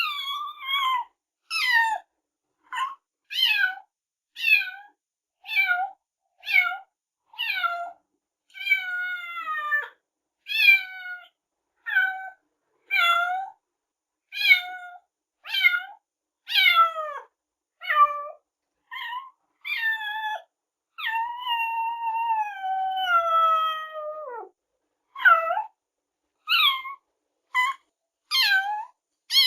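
Cat meowing over and over, short high calls that fall in pitch, about one a second. Near the end comes one long, drawn-out meow that slides downward, then the quick calls resume.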